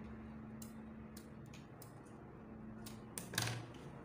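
Cloth handling at a stopped sewing machine: a few light clicks as the finished fabric skirt is drawn out from under the presser foot, then a louder brief rustle of cloth about three seconds in as the skirt is lifted away. A faint steady hum runs underneath.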